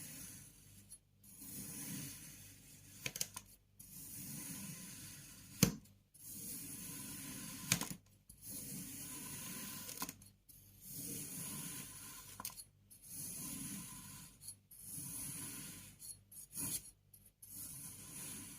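Kinetic sand being cut with a tool: a run of grainy, crunching strokes of a second or two each, separated by brief pauses, with a couple of sharp clicks.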